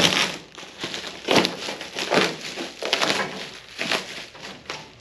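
Plastic film wrapped around a cardboard shipping box being cut and torn away, crinkling and crackling in irregular bursts about once a second.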